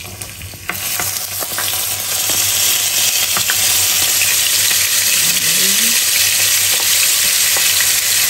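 Spices frying in hot oil in a pan: a loud sizzle sets in about a second in and swells into a steady hiss, with a few light clicks of a stirring utensil.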